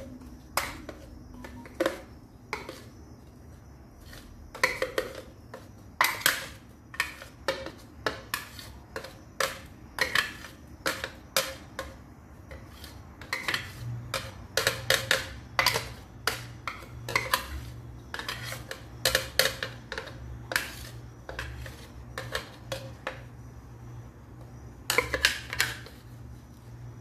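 Blender jar and utensil knocking and clinking against a stainless steel mixing bowl as a thick blended carrot, egg and oil mixture is emptied out: irregular sharp knocks, some in quick clusters.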